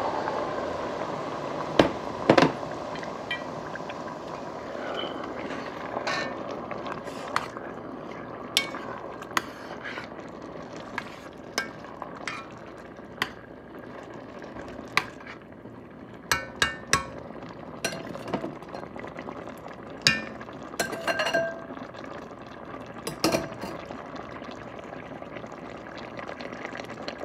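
Blended pepper and tomato mix frying in hot oil in an enamelled cast-iron pot, a steady sizzle. A metal spoon stirring it knocks and clinks against the pot many times, and these clinks are the loudest sounds.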